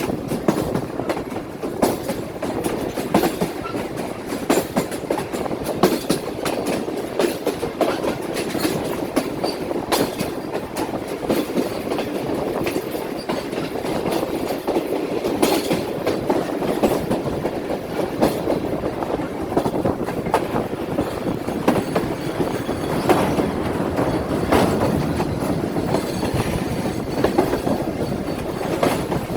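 Awam Express passenger train running along the track: a steady rumble with frequent clattering clicks and knocks as the wheels pass over the rail joints.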